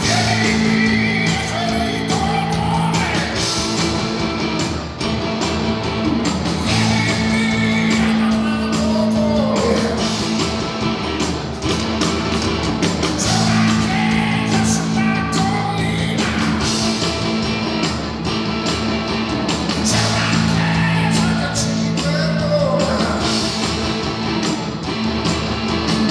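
A live rock band playing, with electric guitar, drums and keyboards under a man's singing voice, in a large hall.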